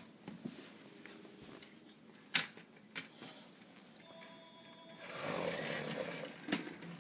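Plastic Lego pieces clicking and knocking together as they are handled, two sharp knocks standing out. Near the end, a Lego truck's small plastic wheels roll across a hardwood floor with a brief rumbling rush.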